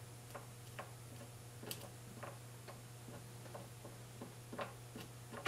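Faint light taps and clicks, about two a second and uneven in strength, as the nozzle of a super glue tube is dabbed into a guitar's nut slot, over a steady low hum.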